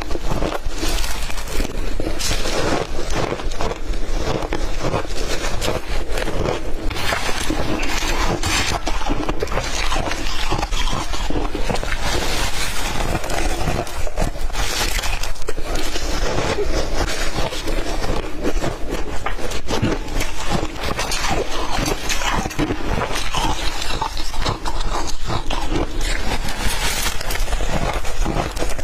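Ice being bitten and chewed close to the microphone: dense, continuous crunching and crackling.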